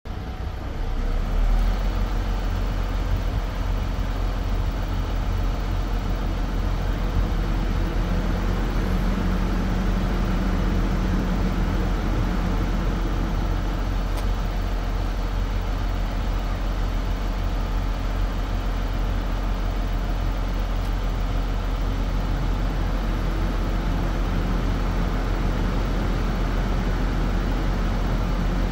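MAN TGS 26.440 truck's six-cylinder diesel engine running steadily at idle while the truck-mounted loading crane's boom is raised hydraulically.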